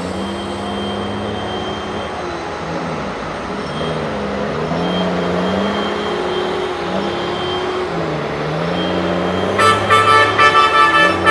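Loaded Mack dump truck's diesel engine pulling uphill, its pitch dropping and climbing again several times as it changes gear. Near the end a truck horn sounds in a rapid string of short blasts, louder than the engine.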